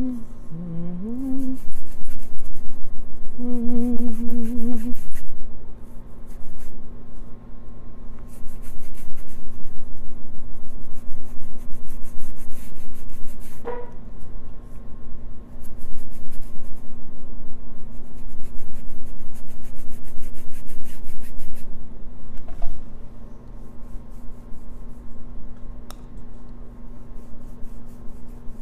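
Paintbrush scrubbed rapidly back and forth over a stage backdrop, in long runs of quick scratchy strokes broken by short pauses. A voice hums a few notes in the first few seconds.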